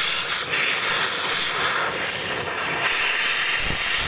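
Oxy-fuel cutting torch flame hissing steadily against a rusty steel shaft, heating a spot of the steel to glowing.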